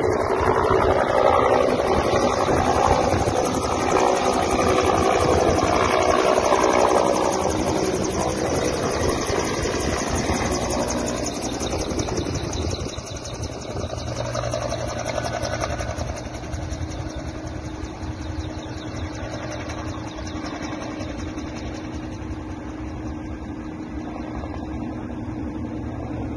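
Air ambulance helicopter lifting off and flying away: rapid, even rotor-blade chop over engine noise. It is loud for the first dozen seconds, then fades as the helicopter draws off into the distance.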